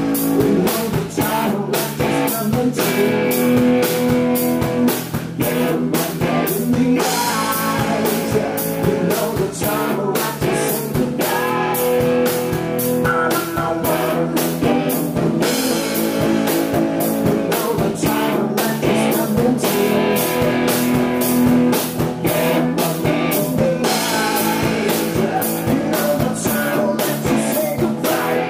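Live rock band: a male voice singing over electric guitar and a drum kit keeping a steady beat.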